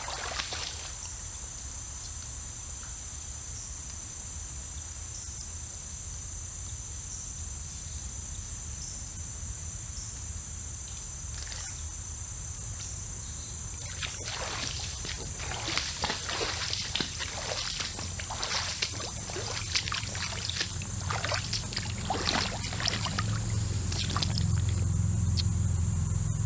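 Wader boots sloshing and splashing through shallow creek water in irregular steps, starting about halfway through and growing louder as they come closer. Under it runs a steady high-pitched drone of insects.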